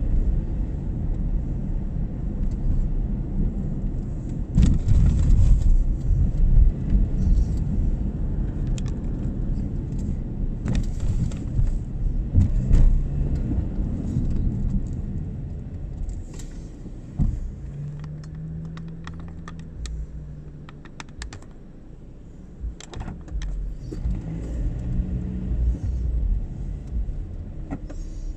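A car being driven, heard from inside the cabin: a steady low engine and road rumble with small clicks and rattles. Past the middle it drops to a quieter, steady engine hum for a few seconds, then the rumble picks up again.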